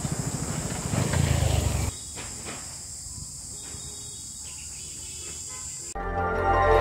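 Motorcycle engine running under way, its low pulsing firing beat under a steady hiss. About two seconds in it cuts off to a much quieter background, and near the end music begins.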